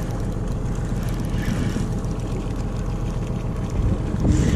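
Boat engine idling steadily under wind and water noise, with a brief louder burst of noise about four seconds in.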